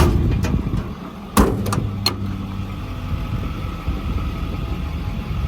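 Ford 6.4 Power Stroke diesel idling steadily, with a sharp knock at the start and another about a second and a half in, followed by a couple of lighter clicks.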